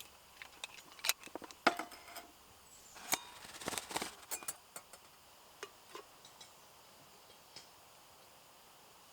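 Small hard objects being handled and set down: a run of light clicks and clinks, two of them with a brief ringing tone, thinning out to a few faint ticks in the second half.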